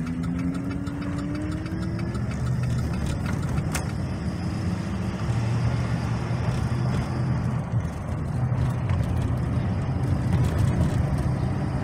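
The 2009 GMC Sierra 2500's 6.0-litre V8 heard from inside the cab as the truck drives, rising in pitch over the first two seconds as it accelerates, then running steady under road noise. It is pulling normally, no longer held in reduced-power limp mode, now that the new accelerator pedal position sensor is in.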